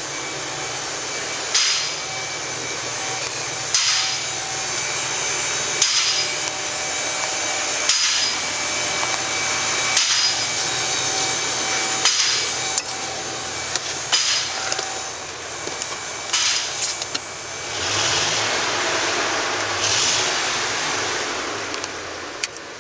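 Sharp knocks, about one every two seconds, like hammer blows, over a steady hiss; a louder rush of noise comes in near the end.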